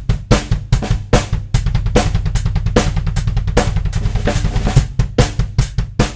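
Drum kit played with a fast, unbroken stream of double-pedal bass drum strokes, with sharp snare and tom hits over it; the snare is a Ludwig Supraphonic on a Dixon Fuse Maple kit.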